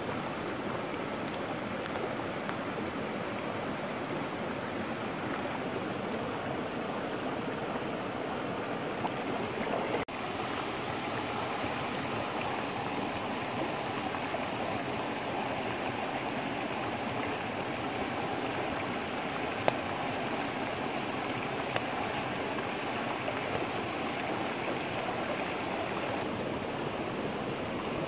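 Steady rushing of a shallow river flowing over stones, with a couple of brief clicks in the second half.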